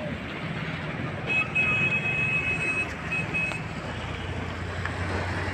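Road traffic passing, with a vehicle engine's low steady hum. A high-pitched horn sounds from about a second in and is held for about two seconds, with a couple of short breaks.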